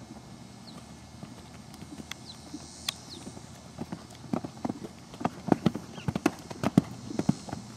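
Horse cantering on sand arena footing: dull hoofbeats, faint at first, grow much louder from about halfway through as the horse passes close.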